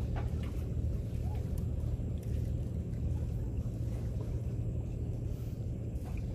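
Steady low engine rumble, like a motor running at a constant pace, with a few faint clicks over it.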